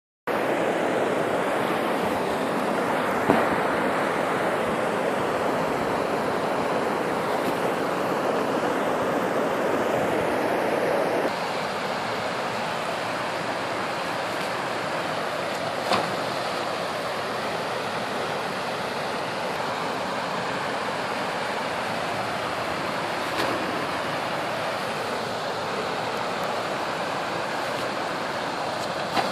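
Creek water rushing over and between stepping stones, a steady rushing, a little quieter after about a third of the way through. A few brief clicks stand out now and then.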